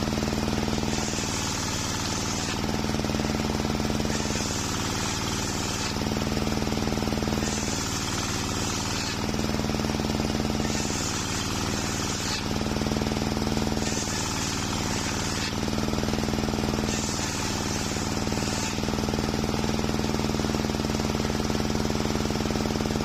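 Homemade table circular saw running and ripping waru (sea hibiscus) planks: a steady machine hum under the blade's cutting noise. The cutting noise swells and eases in repeated passes about every three seconds.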